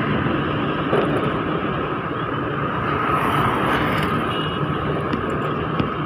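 Motor scooter riding along a road: steady engine, tyre and wind noise with no sudden events.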